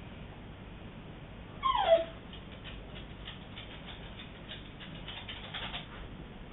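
A dog gives one short whine that falls steeply in pitch, about two seconds in, followed by a run of faint clicks.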